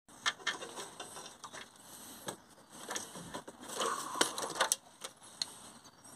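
Irregular metallic clicks and clinks of a hand tool on the fuel vaporiser's threaded fitting on the diesel exhaust as it is undone, with a denser run of clicks and rustling about four seconds in.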